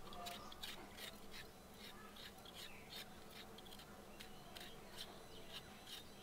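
Small kitchen knife peeling the skin off a raw potato held in the hand: faint quick scraping strokes, a few a second.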